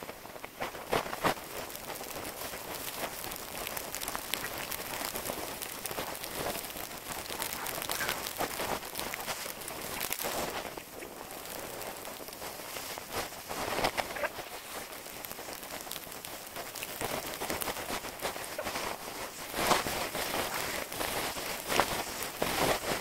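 Snowboard sliding and scraping over soft snow, sped up six times, so it comes out as a continuous fast crackling hiss that swells louder every few seconds.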